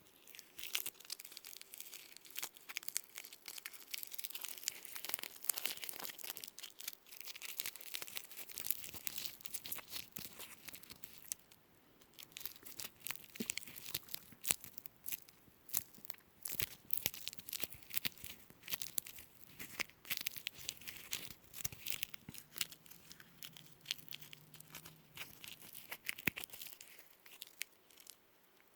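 Adhesive tape being peeled slowly close to the microphone: a dense, continuous run of fine sticky crackles, with a short lull about twelve seconds in.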